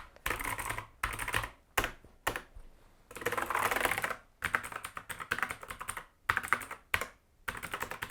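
Rampage Strike RMK Gx7 mechanical keyboard with Jixian blue switches being typed on in quick bursts with short pauses, each keystroke a sharp click, a typewriter-like clatter.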